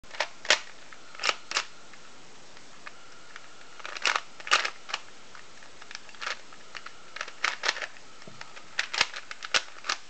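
Plastic Rubik's Cube layers being twisted by hand while it is solved: sharp clicks and clacks at an irregular pace, singly or two or three in quick succession, with a pause of about two seconds after the first couple of seconds.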